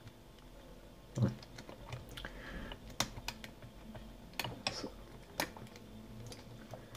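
Hook pick clicking and scraping against the pin tumblers of a cheap euro profile cylinder held under top-of-keyway tension: irregular small metallic clicks, with a louder knock about a second in.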